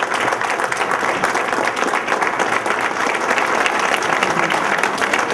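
An audience applauding steadily, many hands clapping together.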